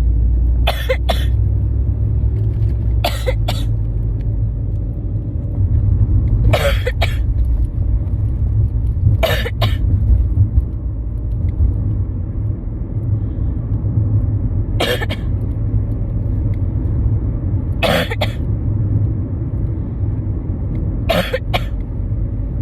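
A person with a head cold sneezing in short, sharp bursts every few seconds, about seven times, several coming as quick doubles, over the steady engine and road rumble inside a moving car.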